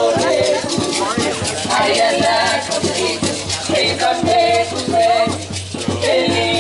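Live music from street performers: singing with percussion keeping a beat.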